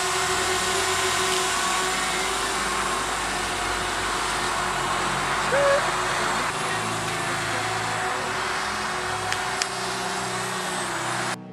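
DJI Spark quadcopter's propellers buzzing steadily as it hovers and flies close by, cutting off abruptly near the end.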